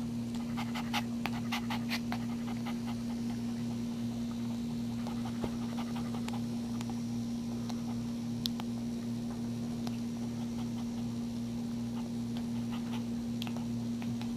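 Maltese mother dog panting in labour between puppies, the short breaths thickest in the first few seconds and sparser after. A steady electrical hum runs underneath.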